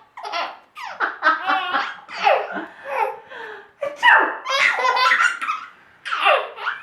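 Baby laughing in a string of short belly-laugh bursts with breaths between them, and a longer run of laughter about four seconds in.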